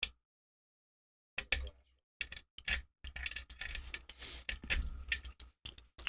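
Lock pick and tension wrench working the pins of a five-pin KEIL pin-tumbler door lock. One click, then from about a second and a half in, a run of small metallic clicks and scratchy rattles as the pins are picked.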